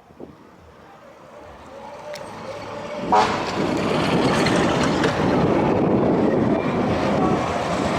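Fire truck horn mounted on a bicycle sounding. It builds up over the first three seconds, then sounds loudly and steadily for the rest.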